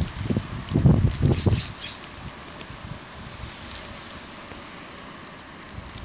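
Wind buffeting the microphone in gusts for the first second and a half, then a steady faint outdoor hiss.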